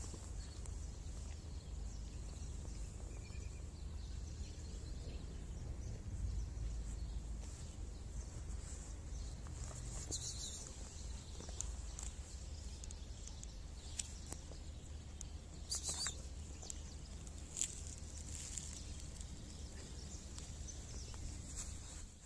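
Steady background rumble and hiss with scattered faint clicks and a few brief rustling sounds.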